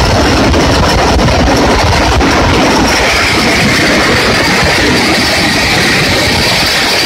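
Motorcycle rigged to ride on railway rails, running at speed: its engine mixed with the steady rolling and rattling of metal rollers on the steel rail. A steady higher whine joins about halfway through.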